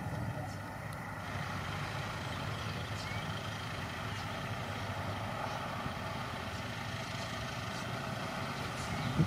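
Dump truck's diesel engine running steadily at a distance as the truck drives slowly over rough dirt ground.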